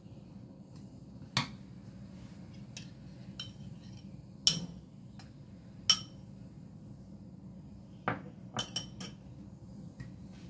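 Scattered clinks and knocks of kitchen utensils and dishes, some with a short ring: a spatula and a ceramic bowl handled over a cake and mixing bowl. The loudest clink comes about six seconds in, with a quick run of three knocks near the end.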